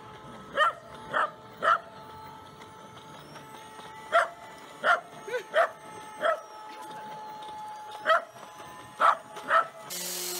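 Small terrier barking repeatedly: about ten short, sharp barks in irregular bunches.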